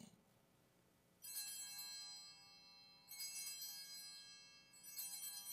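Altar bells rung three times, about two seconds apart, starting about a second in. Each ring is a bright jangle of several small bells that dies away slowly. They mark the elevation of the chalice at the consecration.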